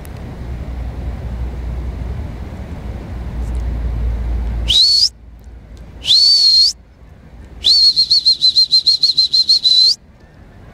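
Three loud, shrill whistle blasts calling a dog back: two short ones that rise in pitch, then a longer warbling one about two seconds long. A low rumble runs until the first whistle and cuts out as it starts.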